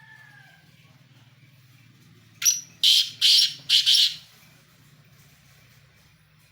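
A pheasant calling: a quick run of four or five loud, harsh notes about two and a half seconds in, over a faint low hum.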